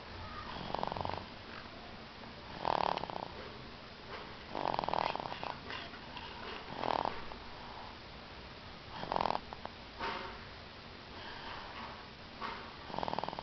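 Snoring in sleep: one snore on each breath, roughly every two seconds.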